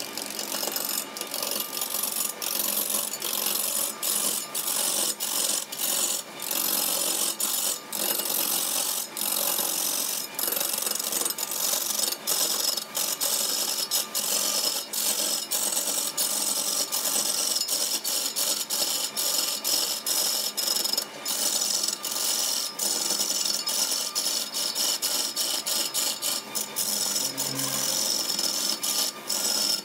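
Long-handled turning tool cutting a large wooden blank spinning on a wood lathe: a continuous hissing, scraping cut with a spray of shavings, broken by many short breaks.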